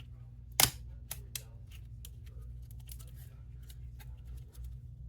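Small plastic clicks and taps of laptop cable connectors being handled and plugged into the motherboard, with one sharp snap about half a second in and lighter clicks after it, over a steady low hum.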